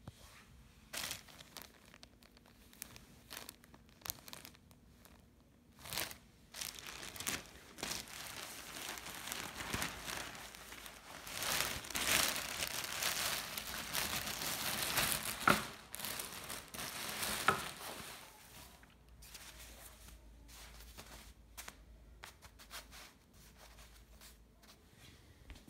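Clear plastic garment bag crinkling as it is handled and pulled away from a down jacket, in irregular crackles that build to a dense, louder stretch in the middle and thin out near the end.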